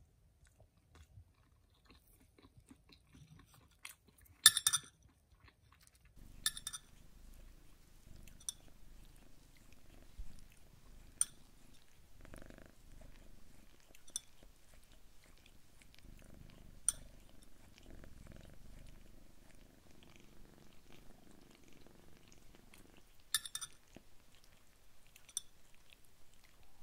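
Tabby kitten grooming itself: quiet wet licking and chewing at its fur, with a low steady purr from about six seconds in and a few sharp clicks.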